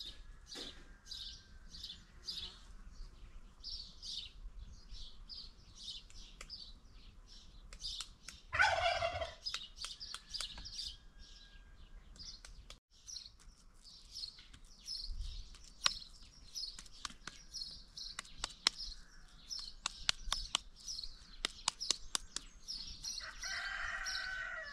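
Small birds chirping over and over in short high notes, about two or three a second, with a loud lower call from a domestic fowl about nine seconds in, falling in pitch, and another fowl call near the end. Light clicks are scattered through the middle.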